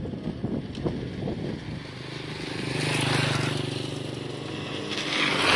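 A motor vehicle passing, its engine hum swelling to a peak about three seconds in and fading, then more road noise rising near the end, over wind buffeting the microphone in the first seconds.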